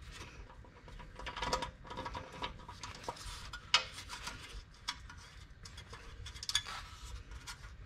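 Scattered light clicks and taps of a screwdriver and metal and plastic dash-cluster parts being handled as a trim piece is unscrewed and worked loose, with a couple of sharper clicks about four and six and a half seconds in.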